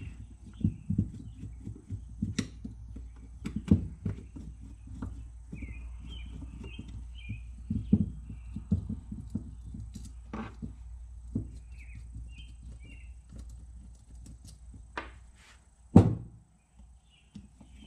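Hand tools on a small carburetor: scattered light metal clicks and taps as the Phillips float-bowl screws are turned out and handled on the bench, with one sharp knock near the end.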